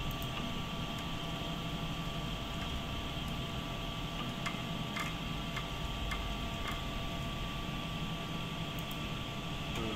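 Steady hum of a laser scanning measuring machine and its electronics, with a few faint steady tones and several light ticks around the middle.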